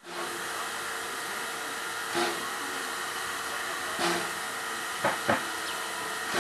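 Standing steam tank locomotive hissing steadily as it blows off steam, with short louder puffs every couple of seconds and a quick double puff near the end.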